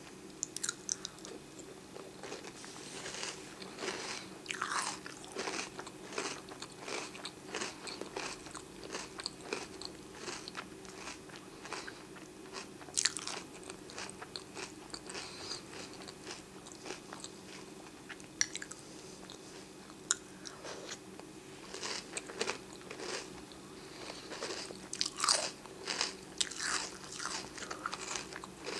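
A person chewing a mouthful of oatmeal square cereal in milk: crisp crunches come in uneven runs, thinning out midway and thickening again near the end.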